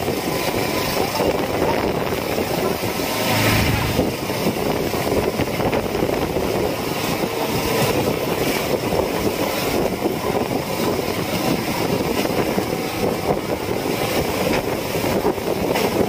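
Fishing boat's engine running steadily under a wash of wind and sea noise, with a louder rush about three and a half seconds in.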